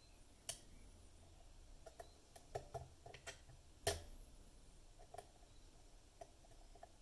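Faint, scattered clicks of a lock pick and tension tool working the pins inside a Lockwood pin-tumbler lock fitted with security pins, with one sharper click about four seconds in.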